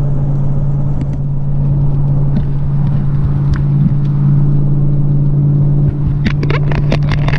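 Steady drone of a car cruising at highway speed, heard from inside the cab: engine and road noise with a constant low hum. A quick run of clicks and knocks comes near the end.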